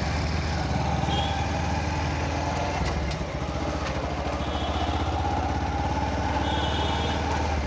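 Motorcycle engine running steadily at low speed while the bike is ridden along a lane.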